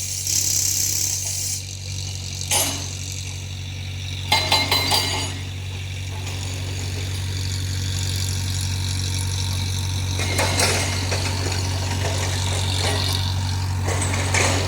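Heavy quarry machine's engine running steadily, with several sharp knocks and clanks of metal or rock over it, including a quick run of four about four seconds in.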